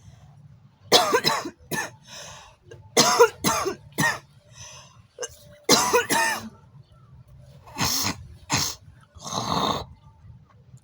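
A young woman's smoker's cough: about ten harsh coughs in four short fits, then a longer rasping hock near the end as she clears phlegm from her throat.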